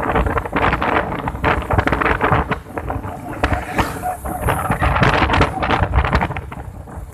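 Strong wind buffeting the microphone: a deep, rough rumble broken by irregular knocks and crackles.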